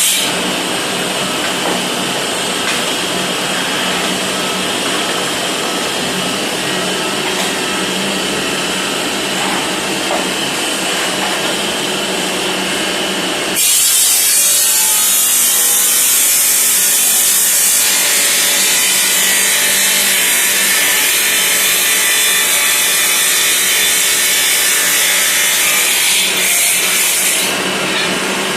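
Automatic tile cutting machine running, its saw blade grinding through ceramic tile with a steady motor hum underneath. About halfway through the cutting noise turns suddenly louder and harsher, easing back near the end.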